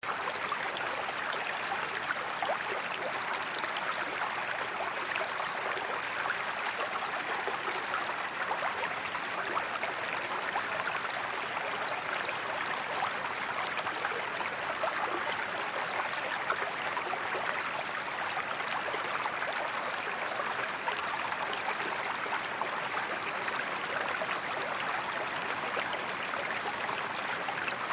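River water flowing steadily, a continuous rush with fine splashing and trickling throughout.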